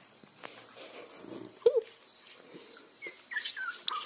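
Newborn Corgi puppies whimpering: one short squeal about halfway through, then a run of small, high squeaks near the end.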